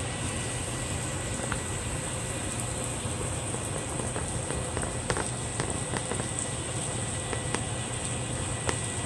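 Meatloaf slices frying in oil in a non-stick frying pan: a steady sizzle with scattered crackling pops of spitting fat, over a low steady hum.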